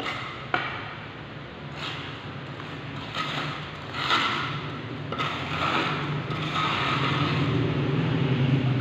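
A trowel scraping and scooping mortar off a hand-held board, in a series of short strokes about a second apart. A steady low hum runs underneath and grows louder near the end.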